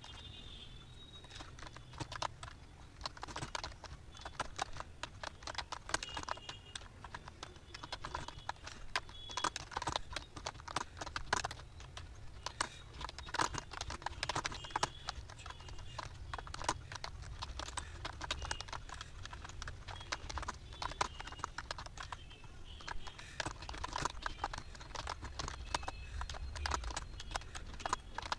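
Computer keyboard being typed on: a steady, irregular stream of fast key clicks, several a second, with a faint low hum underneath.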